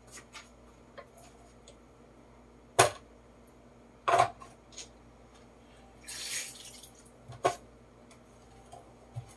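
Kitchen utensils and dishes being handled at a sink, making scattered sharp knocks, three of them loud, and a brief hiss about six seconds in.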